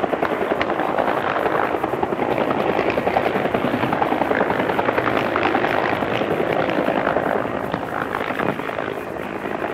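Helicopter running, its rotor giving a steady, rapid chop that dips slightly near the end.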